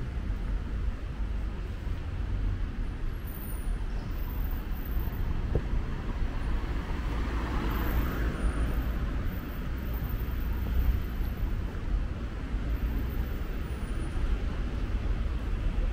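Street traffic noise: a steady hum of cars on a town road, with one vehicle passing near the middle.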